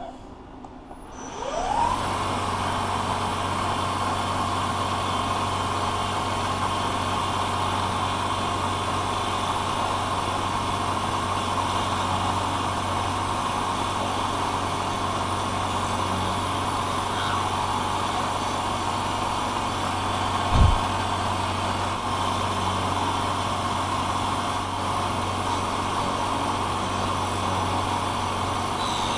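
Manual vertical milling machine spindle winding up with a rising whine, then running steadily as an end mill rough-cuts a brass hand wheel. There is one brief low thump about twenty seconds in.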